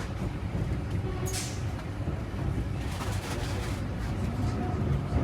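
Steady low rumble of a moving passenger train heard from inside the carriage, with a couple of brief hissing swishes about a second in and around three seconds in.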